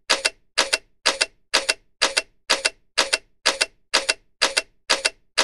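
Camera shutter click sound effect, repeated about twice a second; each shot is a quick double click.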